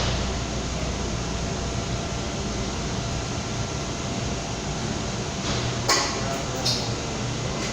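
Steady hiss and crackle of a stick-welding arc burning a 7018 electrode, with a few sharper pops about six seconds in.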